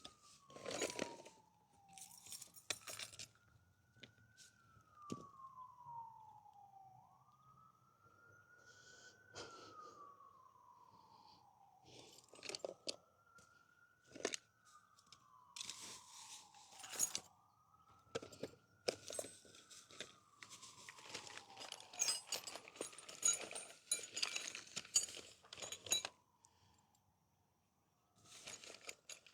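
A siren wailing, each slow rise and fall of pitch taking about two and a half seconds, heard under louder close-up metallic clinks, jangles and rattles that grow busier in the second half.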